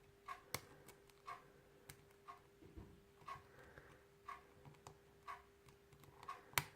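Faint sharp clicks of a deep hook pick and tension wrench working the pins of a 7-pin pin-tumbler lock, over soft, regular ticking about twice a second and a faint steady hum.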